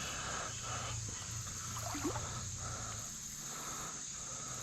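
Insects calling: a steady high drone with a pulsing chirp repeating about twice a second, over a low rush of creek water. A short rising squeak about two seconds in.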